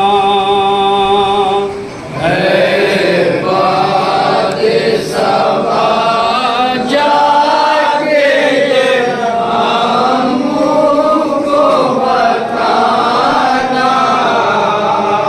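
Nouha, a Shia mourning lament, sung without instruments by men's voices. A single male voice holds a long wavering note, then about two seconds in several voices come in and sing on together.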